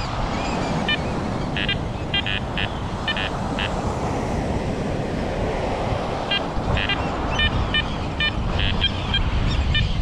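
American oystercatchers giving short, sharp piping alarm calls in two quick runs, one starting about a second in and another from about six seconds in, over steady wind and surf noise: agitated birds at a nesting colony.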